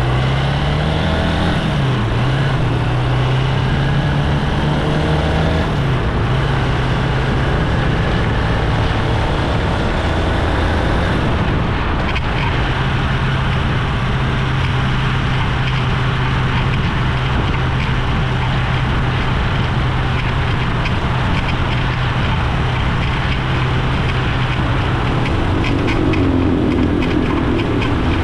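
Honda XR190's single-cylinder engine running on the move, its pitch rising and falling over the first few seconds, then holding steady.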